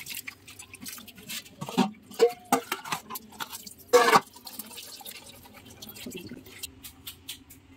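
Water splashing and dripping as minced mutton is squeezed and rinsed by hand in a steel bowl under the tap, then drained off the tilted bowl into the sink, with scattered splashes and drips, the loudest about four seconds in.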